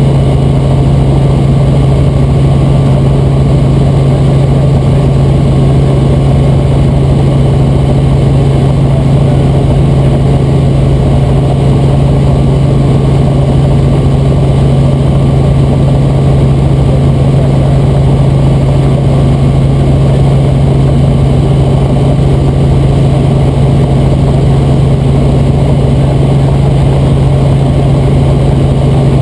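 Robinson R44 Raven II helicopter in level flight, heard inside the cabin: a steady, loud drone of its six-cylinder Lycoming IO-540 engine and rotors with a strong low hum that never changes.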